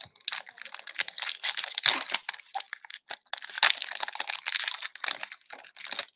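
Foil wrapper of a trading-card pack being torn open and crumpled by hand: a dense crinkling crackle in two long stretches with a short lull about three seconds in.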